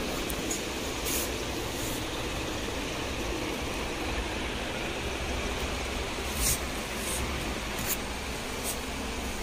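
Steady shop background hum and hiss, with a handful of short clicks and rustles from items being handled. The loudest click comes about six and a half seconds in.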